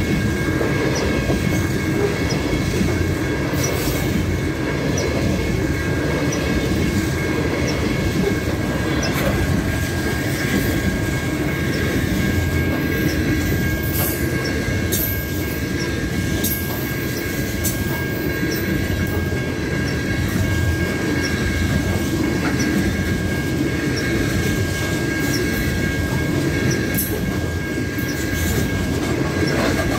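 Coal train gondola cars rolling past at speed: a steady rumble of steel wheels on rail, with a thin continuous wheel squeal above it and scattered sharp clacks.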